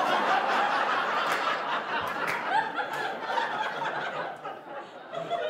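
Studio audience laughing, loud at first and fading toward the end.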